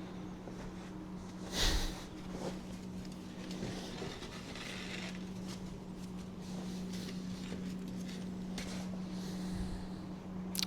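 Faint rustling and handling noises, with one louder rustle about a second and a half in, over a steady low hum.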